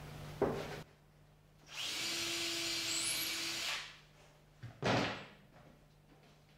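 Cordless drill running steadily for about two seconds, driving a screw into a cedar roof board. A knock sounds just before it and another about five seconds in, as boards and tools are handled.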